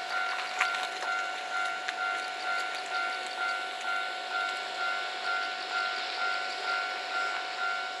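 Japanese level-crossing warning alarm ringing, one electronic ding repeated evenly about twice a second, with a few sharp clicks in the first two seconds.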